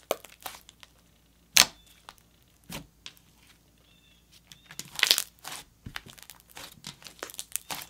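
Thick jelly slime (Slime Obsidian's Galaxy Jelly) being pressed, folded and stretched by hand, giving sharp sticky pops and clicks as it pulls apart. The loudest pop comes about a second and a half in, a cluster around five seconds, and a run of small quick clicks near the end.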